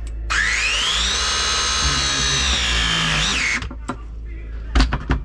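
Milwaukee battery press tool crimping a copper press fitting. Its motor whines, rising in pitch as it spins up, runs steadily for about three seconds and then cuts off. A couple of sharp clicks follow near the end.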